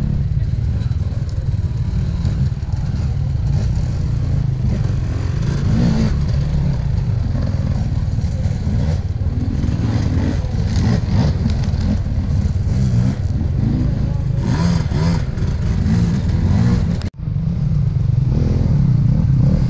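Husqvarna two-stroke enduro motorcycle being ridden, its engine revving up and down with some clatter. The sound cuts out suddenly for a moment near the end, then the engine resumes.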